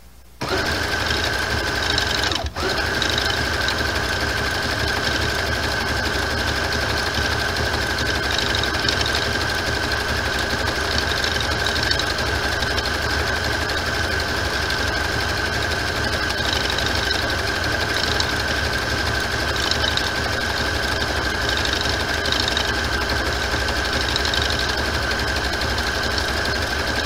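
Electric sewing machine running steadily as it sews an appliqué stitch around a fabric shape, with a constant whine over the stitching. It starts just after the beginning and stops for an instant about two and a half seconds in before running on.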